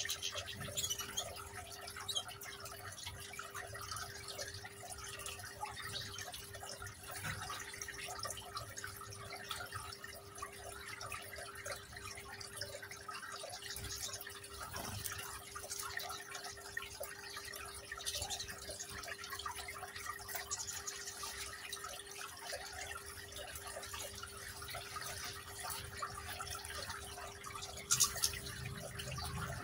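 Small decorative rock water fountain trickling and dripping steadily over a constant low hum. A short, sharp high sound stands out near the end.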